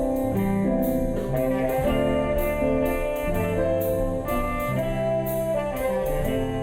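Instrumental music with held chords changing about once a second over a steady beat, without singing.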